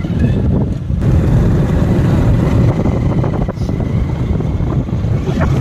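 Motorcycle engine running at road speed, a steady low rumble, with wind buffeting the microphone.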